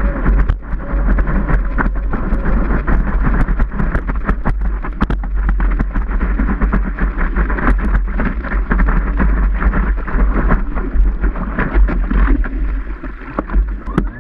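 Whitewater rushing and spray splashing around a surfboard as it rides a breaking wave, with wind buffeting the microphone and many sharp ticks of spray hitting the board-mounted camera. It eases near the end as the ride finishes.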